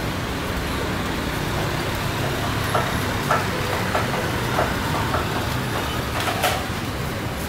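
Airbus A320 jet engines at climb power after takeoff, heard from the ground as a steady low rumble.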